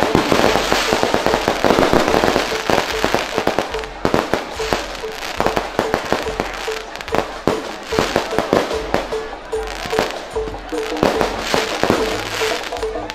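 Aerial fireworks going off close overhead: a rapid, continuous string of bangs and crackling bursts, one after another.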